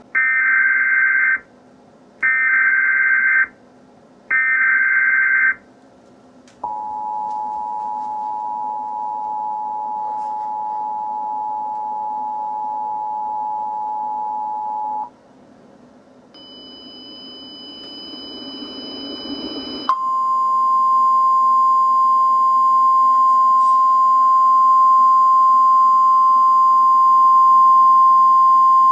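Emergency Alert System tones opening a tornado warning. First come three short bursts of warbling data tones, the SAME header. Next is the two-tone attention signal for about eight seconds, then a few seconds of rising hiss, and about twenty seconds in a single steady high tone starts and holds.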